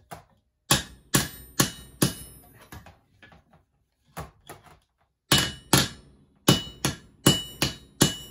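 Ball peen hammer striking the newly fitted nose tip of a steel chainsaw bar, each blow with a short metallic ring. Four blows in quick succession come first, then a few lighter taps, then a steady run of harder blows from about five seconds in.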